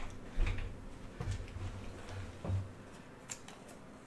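Faint handling noises: a few light clicks and ticks with soft low bumps, as trading cards and a card stand or holder are handled. The bumps die away after about two and a half seconds.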